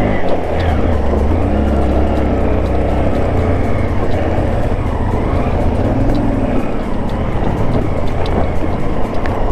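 Motorcycle engine running while riding a rough off-road track, under a steady, heavy low rumble.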